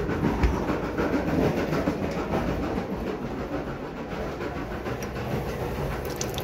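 A steady rumbling clatter with handling knocks as the phone is carried. Near the end a kitchen faucet starts running onto a metal spoon held under it.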